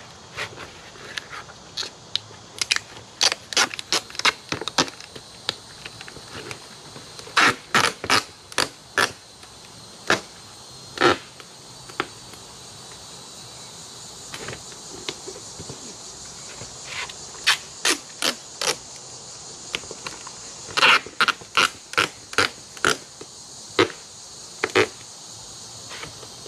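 Ratchet straps being cranked tight around a foam-filled archery target, heard as irregular runs of sharp clicks with pauses between them. Insects chirr steadily in the background.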